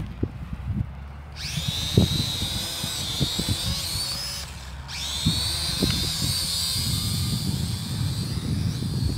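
High-pitched whine of the Z-9 toy drone's small electric motors spinning up about a second and a half in as it lifts off from the grass. The whine cuts out briefly near the middle and starts again, over a low rumble with a few knocks.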